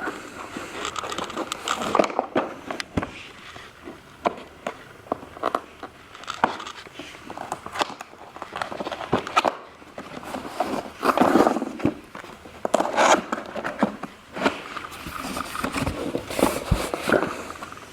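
Cardboard box being opened and its contents handled: irregular scraping, rustling and knocks of cardboard and packaging, louder in short bursts.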